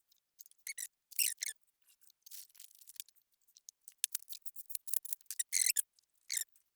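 Hands handling small engine parts or packaging: an irregular series of short, crisp clicks and rustles.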